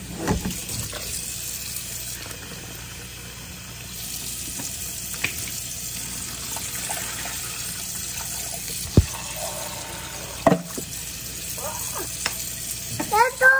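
Water running from a kitchen tap into a sink, a steady splashing hiss, with two sharp knocks about nine and ten and a half seconds in.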